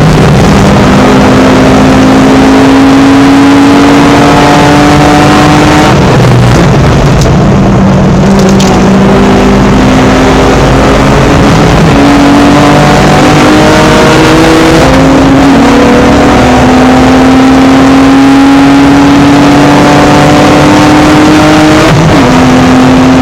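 BMW E46 320i race car's straight-six engine at full load, heard from inside the car, its pitch climbing steadily through each gear and dropping back at several gear changes. Loud throughout.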